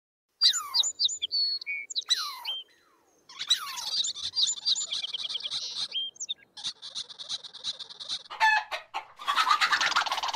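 Birds calling: sharp whistles that fall steeply in pitch, then runs of rapid high chirps, and a harsh, buzzy call near the end.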